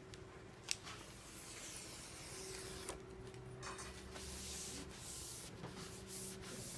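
A plastic banner graphic being pressed onto double-sided tape by hand: stretches of rubbing and rustling hiss, with a sharp click just under a second in.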